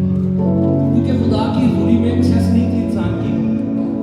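Worship music playing: sustained chords with held notes and a little singing.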